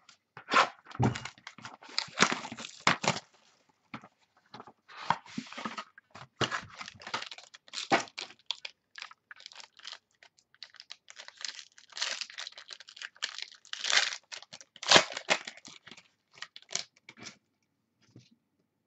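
Sealed baseball-card box (2013 Topps Tier One) being torn open: its plastic wrap and packaging ripping and crinkling in irregular bursts, stopping about a second and a half before the end.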